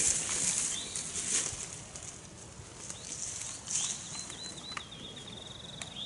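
Rustling of brush and leaves, loudest at the start and fading within the first second or two. A small songbird sings a short note about a second in, then a wavering phrase about four seconds in that ends in a fast trill.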